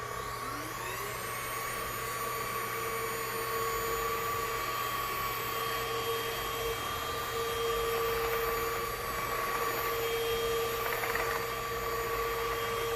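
Aposen H120 cordless stick vacuum switched on, its motor winding up in pitch over about a second and then running steadily with a whine on normal (not boost) power. It is very quiet for a vacuum.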